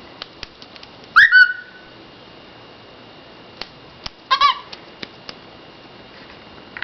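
Pet bird calling twice: about a second in, a call that rises and then holds a level note, and about four seconds in, a shorter doubled call. Light clicks between the calls.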